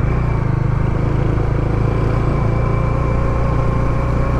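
Motorcycle engine running at a steady pitch, picked up by a lavalier mic inside the rider's helmet chin curtain.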